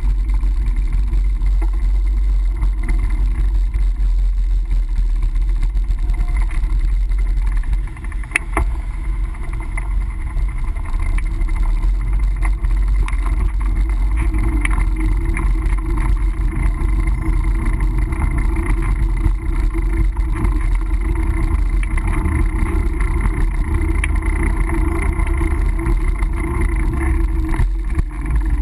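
Steady wind rumble on a GoPro's microphone as a mountain bike is ridden, with a single sharp knock about eight seconds in.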